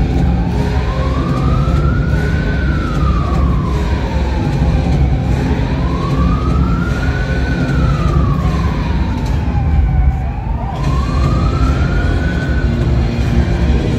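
A siren wailing slowly, its pitch rising and falling about every five seconds and cutting off after a last rise near the end, over a loud, steady low rumble.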